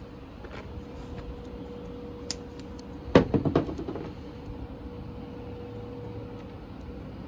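Handling noise while working on car wiring by hand: a single click, then a brief rattling clatter of several knocks about three seconds in, over a steady hum.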